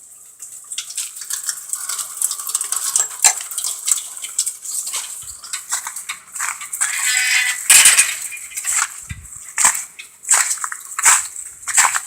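Footsteps in soaked shoes splashing and squelching through shallow floodwater: a run of irregular sharp clicks and splashes, with a brief squeak about seven seconds in.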